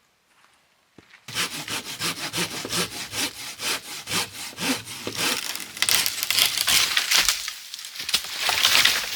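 A hand saw cutting through wood, starting about a second in with quick, regular back-and-forth strokes.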